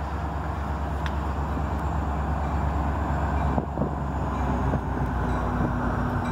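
Metra diesel commuter train approaching the platform: a steady low rumble that grows slightly louder as it nears, with a steady hum joining about two-thirds of the way through.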